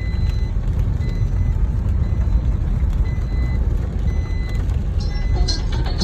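Heavy rain with a deep, steady rumble beneath it, and an electronic beeper sounding a short high beep about once a second.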